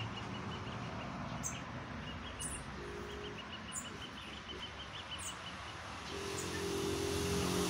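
Outdoor ambience: birds chirping, with a rapid run of short repeated chip notes and a few higher calls. About six seconds in, a vehicle's engine hum comes in and grows louder.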